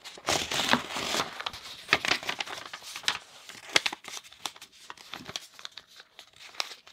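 A paper page being torn out of a paperback journal, then the loose sheet folded and creased by hand, crinkling. The tearing is densest in about the first second; the crinkles grow sparser toward the end.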